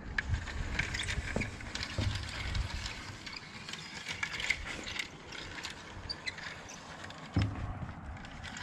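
Small irregular plastic clicks and rattles as a Lego locomotive is handled and set onto plastic Lego track, with a few dull knocks.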